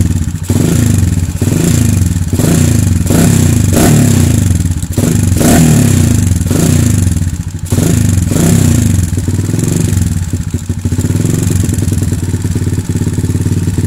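Kawasaki KLX 150's single-cylinder four-stroke engine running with its PE28 carburettor being tuned for idle. The revs fall back again and again, about once a second, then settle into a steady idle about eight seconds in.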